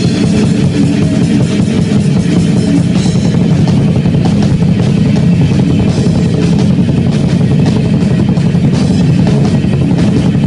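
Live metal band playing loud and without a break: electric guitar over hard-hit drums on a Tama kit.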